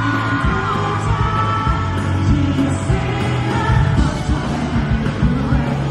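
Pop-rock band music: a sung lead vocal over bass guitar and a steady drum beat.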